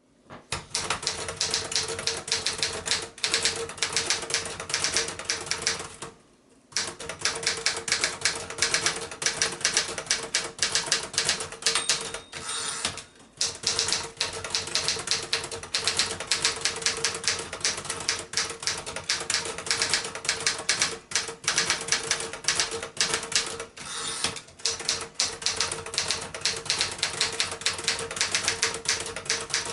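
1966 Remington Personal-Riter portable typewriter typing fast: a rapid, continuous clatter of key strikes, broken by brief pauses about six and thirteen seconds in. A steady hum sits underneath.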